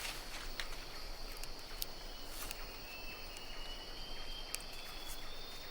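Forest insects droning in a steady high tone, with a thinner high whine joining about halfway through and scattered sharp clicks and snaps.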